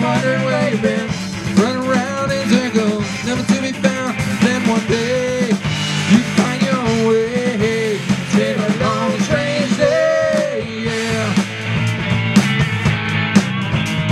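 Live rock band playing: two electric guitars, a three-string electric bass and a drum kit, with a lead melody bending up and down in pitch over the steady bass and drums.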